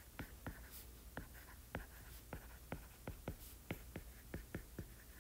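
Stylus tapping and scratching on a tablet screen while handwriting math: faint, quick clicks, about three a second, as each stroke touches down.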